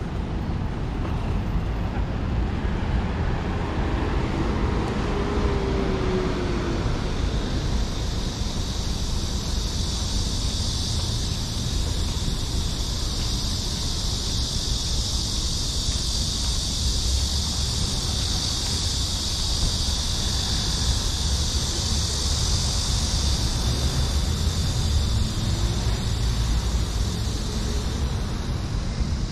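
City street ambience dominated by road traffic: a steady low rumble of passing vehicles. A high hiss swells and fades again over about fifteen seconds in the middle.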